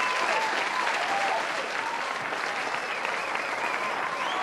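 A crowd applauding steadily, with scattered cheering whoops rising and falling over the clapping.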